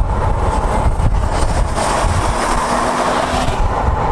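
Twin-turbo inline-six of a Toyota Supra MK4 under acceleration with its turbos spooling; the air box has been removed, so the intake is openly heard. It comes over steady road and wind noise from a moving car, with a rising hiss in the middle.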